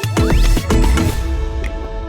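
Background electronic music with a drum beat and a rising sweep; about a second in the beat drops out, leaving a softer held melody.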